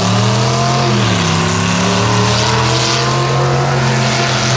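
Engine of a lifted Dodge Ram mud truck running under load through a mud pit: the revs climb, fall back about a second in, then hold steady.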